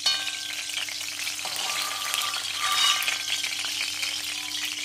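Hot oil sizzling in an aluminium kadai as green chillies fry in it, with a steel spoon clinking against the pan at the start and scraping it again about two to three seconds in.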